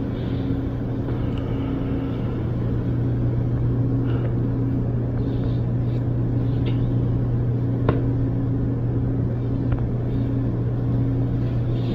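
A steady low hum, with a fainter tone above it that comes and goes, and a few faint clicks or taps.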